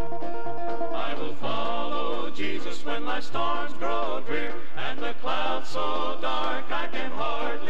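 Southern gospel male quartet singing in close harmony over a bass and guitar backing; the voices come in about a second in after an instrumental lead-in.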